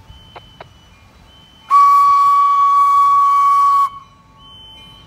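Steam locomotive whistle blowing one long, steady single-note blast of about two seconds, with steam hissing along with it, starting about a second and a half in.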